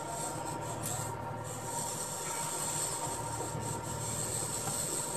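Steady construction-site background noise: a constant hum with an even hiss and no distinct knocks or clangs.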